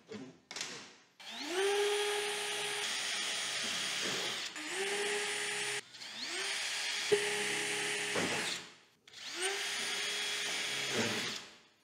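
Cordless drill boring holes through a trap-door frame with a small metal-drilling bit, running in four spells of a few seconds each. Each time the motor spins up to a steady whine, with a sharp click about seven seconds in.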